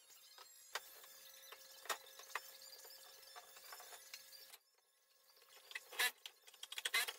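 Faint clicks and knocks of hand-tool work on wooden kitchen cabinets over a low steady hum that cuts off partway through, then two short bursts of rattling clatter near the end.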